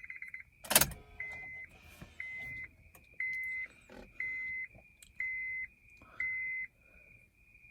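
A 2009 Honda CR-V's dashboard warning chime beeps six times, evenly about a second apart, over a faint steady high tone. It comes after a sharp click or knock near the start.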